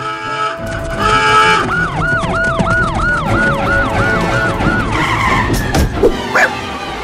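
An alarm siren wailing in quick, evenly repeated rising-and-falling whoops, about three a second for some three seconds, with music and scattered clatters and skids around it.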